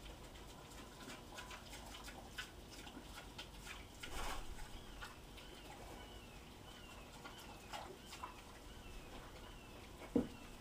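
A pig and another animal eating from metal bowls: scattered clicks of chewing and bowl contact, a short burst of breathy noise about four seconds in, and a single low thump near the end. A faint high falling chirp repeats about every half second through the second half.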